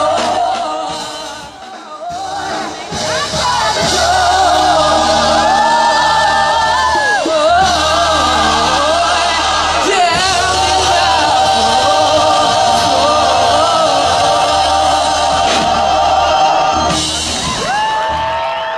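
Large choir singing with accompaniment through a PA system, holding long, wavering notes over a low bass line; the sound dips briefly about two seconds in.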